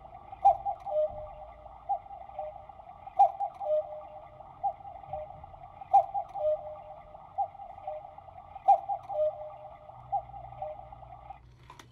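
Quartz battery cuckoo clock playing its electronic sound through its speaker: a string of short notes in a pattern that repeats about every three seconds. It stops near the end, followed by a single click.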